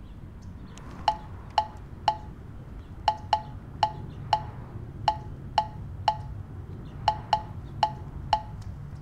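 Film score music: a sparse, pitched ticking percussion figure, with short bell-like taps about twice a second in a rhythmic pattern with gaps and doubled strokes, starting about a second in over a low steady drone.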